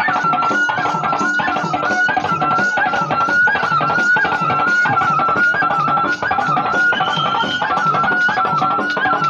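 Devotional bhajan music: one sustained melody line that steps up and down, over regular drum beats and jingling of ankle bells.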